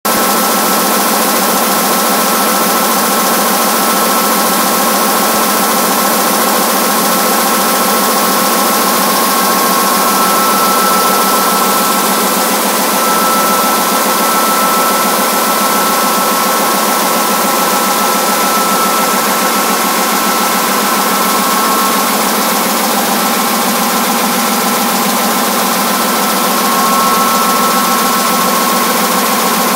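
KBA Comet web offset press running at production speed: a loud, steady mechanical din with a couple of steady high whining tones over it.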